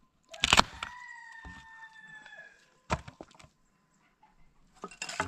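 Sharp knocks of an axe chopping dry branches: one about half a second in, another near three seconds, and a few more near the end. Between the first two, a rooster crows once, a long call lasting about a second and a half.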